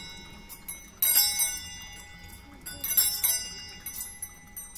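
Altar bells shaken at the elevation of the consecrated host, two jangling rings, about a second in and about three seconds in, each ringing on and fading.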